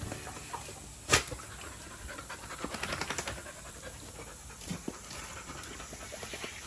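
Labrador retriever panting in quick short breaths, loudest in a run a little before the middle. A single sharp knock about a second in is the loudest sound.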